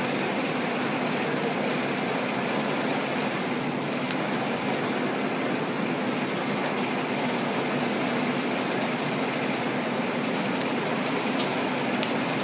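Fire trucks' engines running steadily at the scene, a continuous even drone with a faint steady hum through it, and a few faint clicks near the end.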